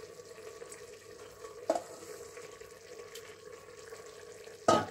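Kitchen sounds while raw chicken is added to a steel stew pot on a gas stove, over a steady hum. There is a knock about a second and a half in, and near the end a loud metallic clank as the stainless steel bowl is handled and put down.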